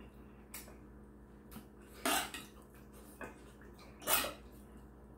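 Eating sounds: a metal spoon clicking and scraping in a pot of army-base stew and a rice bowl. Two louder, short noisy sounds come about two and four seconds in.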